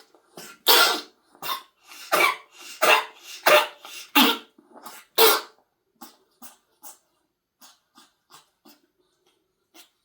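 A pet coughing in a run of harsh hacks, roughly one every three-quarters of a second, which stop a little past five seconds in. Faint short clicks and snuffles follow.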